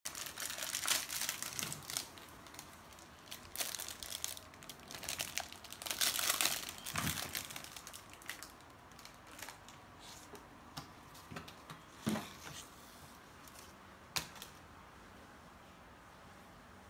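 Clear plastic packaging crinkling and tearing as a block of soft modelling clay is opened and pulled out, busiest in the first seven seconds. After that come fainter rustles and a few sharp clicks.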